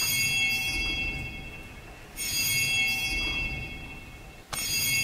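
A bell struck three times, a little over two seconds apart, each strike ringing on and fading away.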